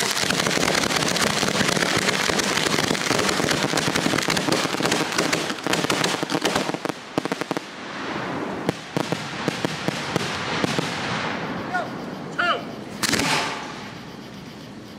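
Aerial fireworks going off: a sudden dense barrage of rapid crackling and bangs that thins after about seven seconds into scattered sharp pops and booms, with one loud report about thirteen seconds in.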